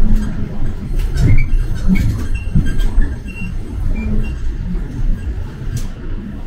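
Interior noise of a moving city bus: a steady low engine and road rumble with knocks and rattles, and a few short high squeaks in the first few seconds.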